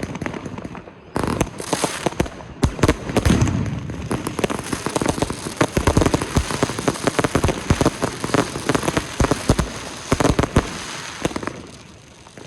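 Fireworks going off in a dense, rapid run of bangs and crackling, with a brief lull about a second in. The bangs thin out near the end and then stop abruptly.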